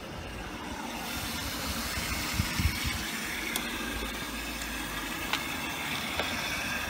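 Tricity Bendix WDR1040W washing machine taking on water during a wash cycle: a steady hiss of water running in, with a few faint ticks.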